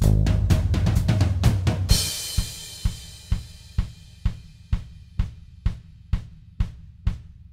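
Background music built on a drum kit and bass: full band playing, a cymbal crash about two seconds in, then a sparse steady beat of about two drum hits a second.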